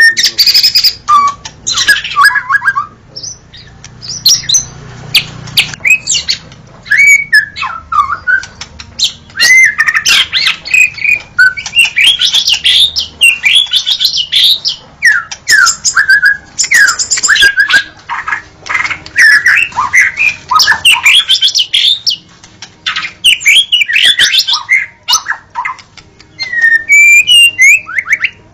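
White-rumped shama (murai batu) singing a long, varied song: rapid whistled phrases full of quick rising and falling glides, mixed with sharp clicks.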